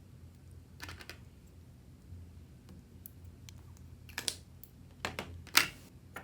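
Plastic being handled: a few short crackling clicks, the loudest about five and a half seconds in, over a steady low hum.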